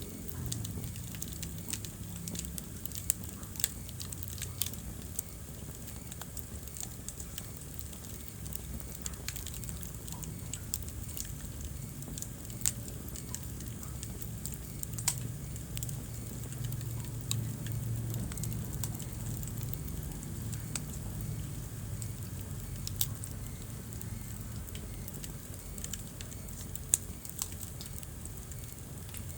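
Wood fire burning in a fireplace: irregular sharp crackles and pops, a few louder snaps standing out, over a low steady rumble of the flames.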